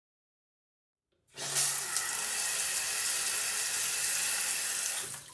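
Shower water spraying hard against a tiled wall, coming on suddenly about a second and a quarter in and dying away near the end: the shower turned on and off at the tap just fitted with a new ceramic disc spindle.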